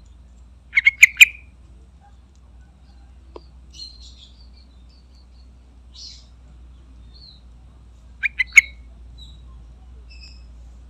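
Yellow-vented bulbul calling: a quick burst of four loud, sharp chirps about a second in, and another burst of three about eight seconds in, with faint softer chirps in between.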